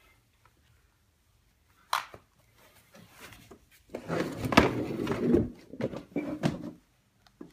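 A sharp click about two seconds in, then about three seconds of irregular rustling and knocking, like objects being handled and moved about.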